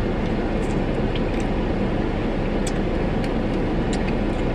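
Steady low rumble of a car in motion, with a few faint ticks.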